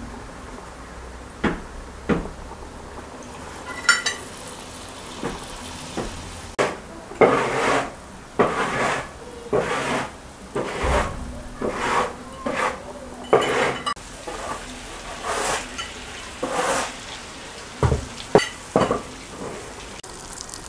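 Metal fork clinking and scraping against a frying pan while food fries in bubbling oil, with a ringing clink about four seconds in and then a run of short irregular scrapes.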